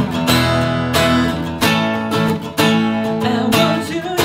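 Acoustic guitar strummed in a steady rhythm. The chords are struck about every half second to second and left to ring, opening an unplugged song.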